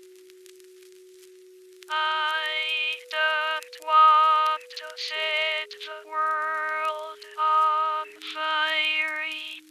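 Electronic music: a single held synth note, then from about two seconds in a synthetic, voice-like lead melody in short phrases with some sliding notes over sustained bass notes. It stops abruptly near the end.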